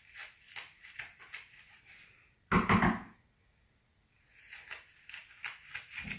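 Kitchen handling noises: light clicks and taps of utensils and dishes being moved, with one louder knock about two and a half seconds in and more tapping near the end.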